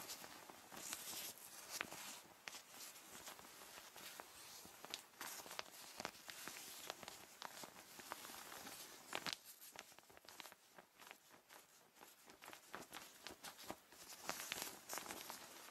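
Faint rustling and crinkling of PVC and vinyl rainwear: irregular soft swishes with scattered small crackles.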